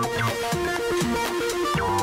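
Background electronic music with a steady beat and a repeating stepping melody.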